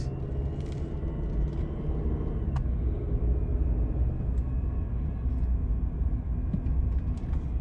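Steady low rumble of a car driving slowly, heard from inside the cabin: engine and tyre noise on a concrete path. A single faint click about two and a half seconds in.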